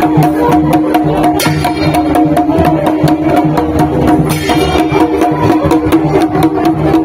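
Live folk drumming on a two-headed dhol: fast, steady beats over a held droning tone from a wind instrument.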